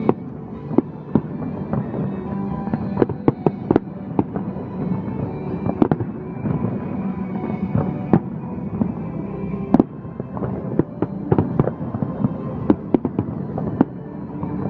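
Fireworks bursting in a rapid, irregular series of sharp bangs, over music with sustained chords.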